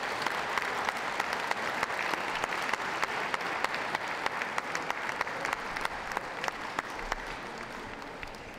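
Audience applauding, a dense patter of clapping that thins out and fades away near the end.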